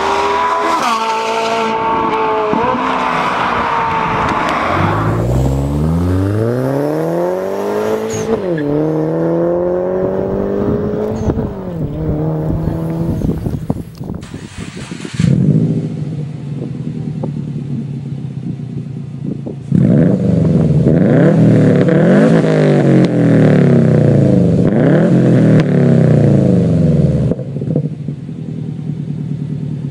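Several different high-performance car engines in turn, each clip cut abruptly into the next: an engine pulls up in pitch through the gears with a shift partway through, then another engine is blipped up and down in quick revs before settling back.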